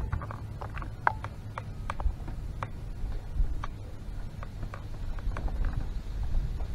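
Scattered light knocks and clicks on an aluminum fishing boat as a man moves about its bow deck, a sharp knock at the start and a few with a brief metallic ring, over a low steady rumble.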